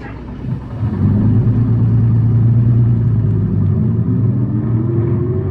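City bus diesel engine pulling away from a stop, a deep steady rumble that builds about a second in, with a whine rising steadily in pitch from about four seconds in as the bus accelerates.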